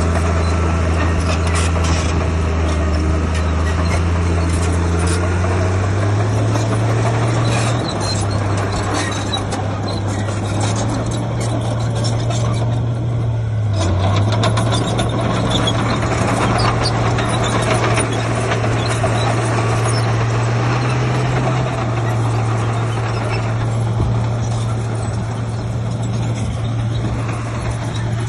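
Heavy diesel construction machinery running steadily under load. The engine note shifts pitch about six seconds in and again around twenty-two seconds, over a constant clatter.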